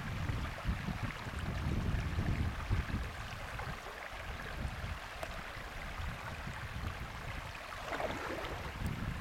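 Wind buffeting the microphone in low gusts over a steady hiss of moving water; the gusts ease off for a few seconds mid-way.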